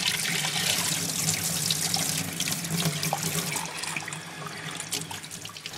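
Tap water running and splashing into a glass dish held in a sink, rinsing acid out of freshly nitrated cotton. A steady hiss of water with small splashes, thinning a little near the end.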